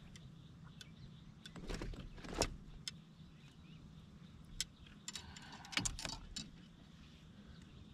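Light clicks and small metallic rattles of fishing gear being handled aboard a kayak, in two short clusters, about two seconds in and again around five to six seconds in.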